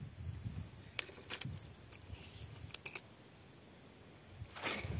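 Faint scattered clicks and light rattles of a fishing rod and reel being handled, then a short whoosh of air near the end.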